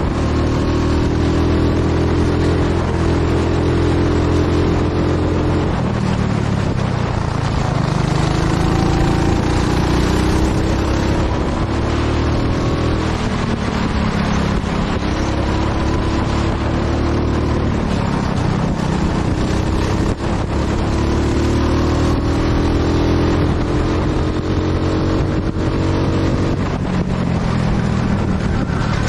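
Go-kart engine accelerating and easing off as the kart laps the track. Its pitch climbs steadily for several seconds, then drops sharply, over and over.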